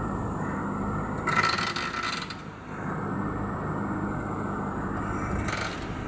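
JCB 3DX backhoe loader's diesel engine running steadily under load while the arm digs, with a brief louder grinding squeal from the bucket and digging arm about a second in and another short one near the end.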